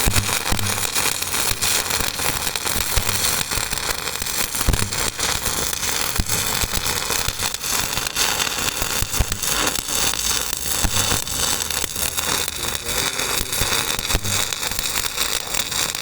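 Stick welding arc burning a 7018 electrode at about 315 amps in the flat position: a steady, dense crackle and sizzle that runs without a break.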